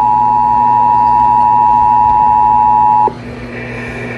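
Emergency Alert System two-tone attention signal (853 and 960 Hz together) over a radio broadcast, a loud steady dual tone that cuts off suddenly about three seconds in. It signals the start of an Amber Alert activation.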